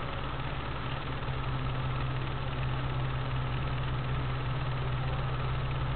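Four-wheel drive's engine idling steadily, a constant low hum heard from inside the cabin.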